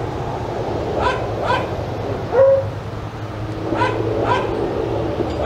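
A dog barking: five short, fairly high-pitched barks over about four seconds, mostly in pairs about half a second apart.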